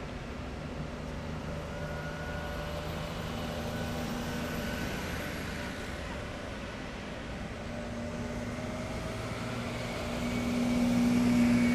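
Engines of heavy military vehicles driving past in a column, a steady low rumble with road noise; one comes closer and grows louder about ten seconds in, then eases off.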